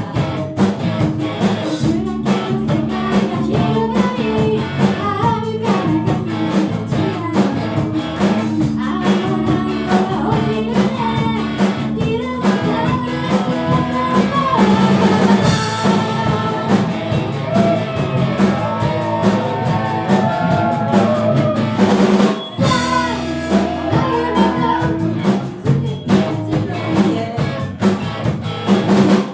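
Live rock band playing: a drum kit keeps a steady beat under bass and electric guitar, with a singer's voice at times. The band drops out briefly about 22 seconds in, then comes straight back.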